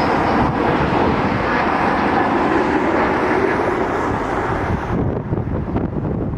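Jet airliner engines running loud as the aircraft passes, the sound dulling and fading about five seconds in. Wind buffets the microphone near the end.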